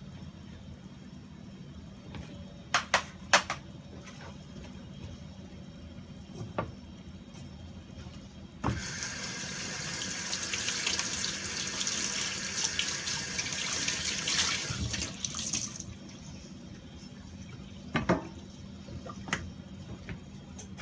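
Kitchen tap running for about seven seconds, starting suddenly in the middle and cutting off, with a few sharp knocks of handling before and after.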